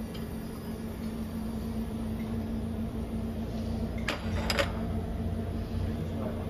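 Steady low hum of cooling machinery, such as a refrigerated buffet counter, with a faint steady tone, and two sharp metallic clinks about four seconds in.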